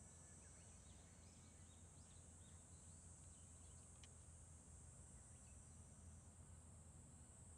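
Near silence: faint outdoor ambience with a steady high hiss and scattered faint bird chirps.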